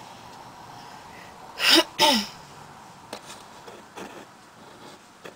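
A young woman sneezing: two loud, sharp bursts in quick succession about two seconds in, each trailing off in a falling voiced tone.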